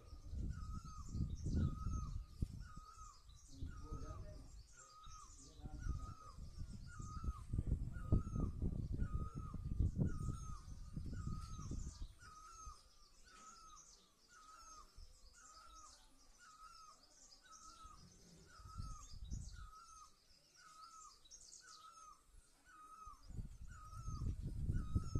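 A bird repeats one short call note over and over, very evenly, about one and a half times a second. Bursts of low rumble come and go, and there is faint high chirping behind the call.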